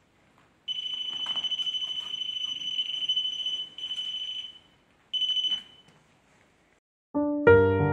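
A handheld electronic detector gives off a steady, high alarm tone in three stretches: a long one of about three seconds, then a shorter one, then a brief one. Piano music comes in just before the end.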